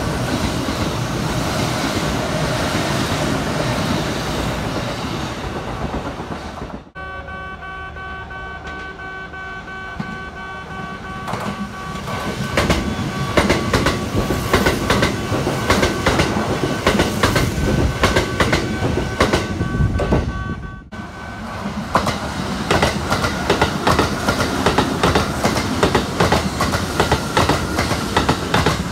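Kintetsu electric trains running past a platform, wheels clicking over the rail joints. In the middle a white express with an orange stripe runs close by with a steady tone over the clicking.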